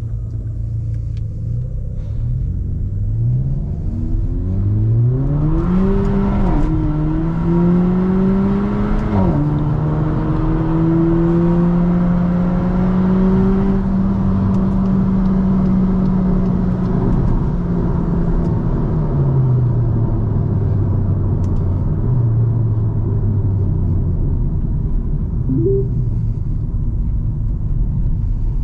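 Car engine accelerating through the gears over steady road and tyre rumble: its pitch climbs, drops sharply at two upshifts a few seconds apart, holds steady while cruising, then falls as the car eases off near the end.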